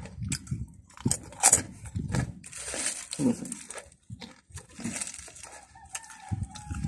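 Crunchy potato snack pieces being snapped apart by hand and chewed close to the microphone: a string of irregular crackles and crunches.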